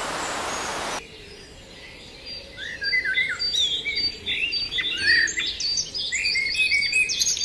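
Forest birds chirping: many short, quick calls overlapping each other, starting about two seconds in. Before them, a steady hiss cuts off suddenly about a second in.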